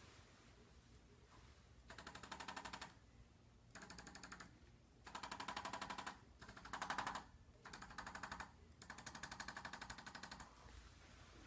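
Hand-held chiropractic adjusting instrument firing rapid trains of clicks, six short runs of about a second each with brief pauses between them.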